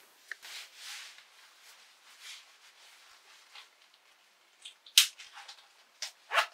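Clothing rustling as a man changes out of trousers and into leather shorts, with two sharp clicks about five and six and a half seconds in as the shorts are fastened at the waist.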